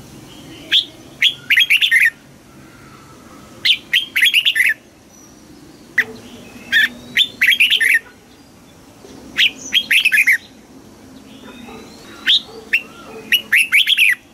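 Red-whiskered bulbul singing: five short phrases of quick, clear notes, each a second or two long, with pauses of a couple of seconds between them.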